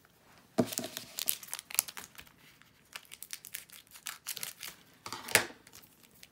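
Foil Pokémon booster pack wrapper crinkling and crackling in irregular bursts as it is handled and opened. The loudest crackles come about half a second in and again about five seconds in.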